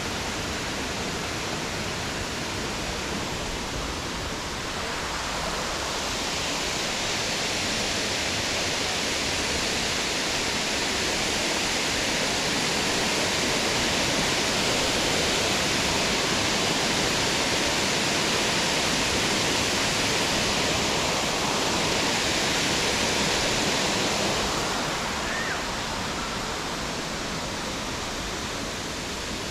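Steady rush of flowing water from a forest stream or waterfall, a constant hiss with no single events. The hiss grows louder from about six seconds in and eases again a few seconds before the end.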